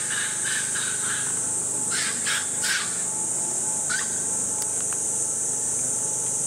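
A few short animal calls: several pitched calls at the start, three quick calls about two seconds in and a short rising chirp about four seconds in, over a steady high-pitched hiss.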